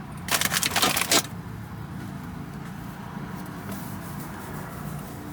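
A burst of rustling lasting about a second, the loudest thing here, then a steady low hum.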